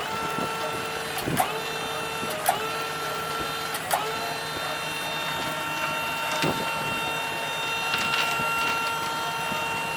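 Tractor hydraulics whining steadily under load while lifting a heavy rock, with a few sharp clanks in the first four seconds.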